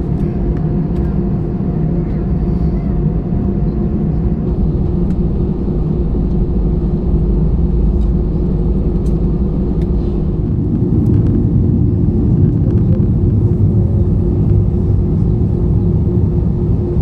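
Airbus A320's CFM56 engines and airframe heard inside the cabin while the aircraft taxis: a steady low rumble with a steady hum over it, growing a little louder about seven seconds in.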